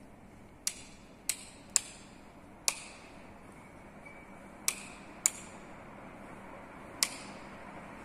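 Panasonic industrial ceiling fans running with a steady rush of air. Over it come seven sharp clicks at uneven intervals, each with a short ring after it.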